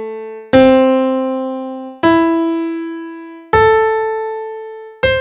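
Piano playing a slow ascending A arpeggio, one note struck about every second and a half (quarter note = 40), each note ringing and fading before the next.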